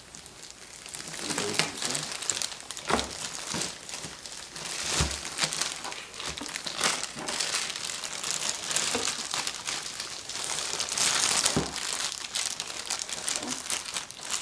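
Clear plastic bag around a pair of neoprene waders crinkling as hands handle it and lift it out of a cardboard box, with a few dull thumps.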